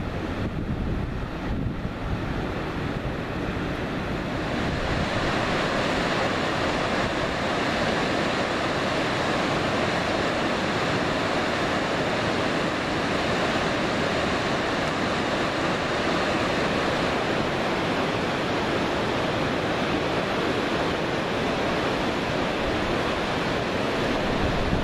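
Steady rushing of flowing water that builds over the first few seconds, with the low rumble of wind on the microphone underneath.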